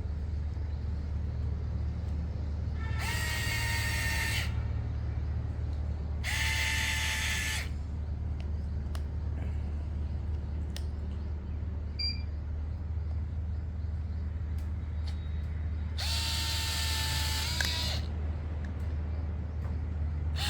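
Electric screwdriver with a 2.0 mm hex bit whirring in three short runs, the last one longer, as it drives in the kit's screws. A steady low hum runs underneath.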